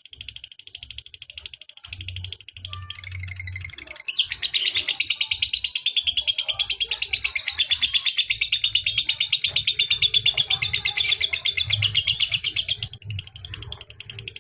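Lovebird giving its kekekan, a long rapid chattering call of sharp repeated notes. It starts lighter and broken, then runs loud and unbroken for about nine seconds before stopping near the end.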